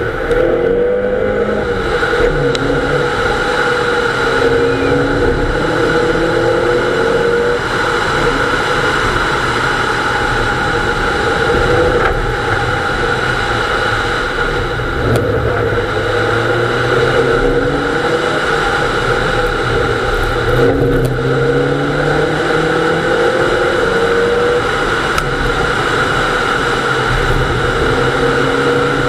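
Nissan Almera GTi's 2.0-litre four-cylinder engine under hard acceleration, heard from inside the cabin. Its pitch climbs through each gear and drops back at every upshift, several times over, with steady road and wind noise underneath.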